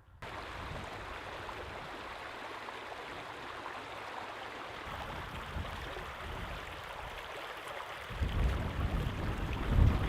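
Steady rushing of flowing water, like a river running. About eight seconds in, a louder, uneven low rumble joins it.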